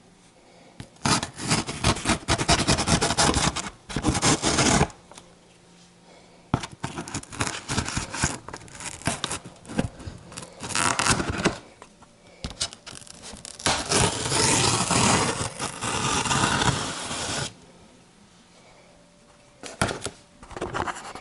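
A bayonet knife sawing and slicing through the packing tape and cardboard of a shipping box: four bouts of scraping and tearing with short pauses between.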